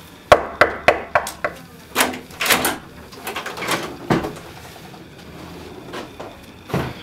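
Knuckles knocking on a door: five quick raps, about three a second. After a short pause come louder thumps and clatter as the door is opened.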